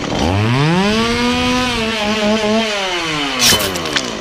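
Two-stroke chainsaw engine revving up hard, held at high speed with a slight wavering, then dropping back near the end. A sharp snap is heard about three and a half seconds in.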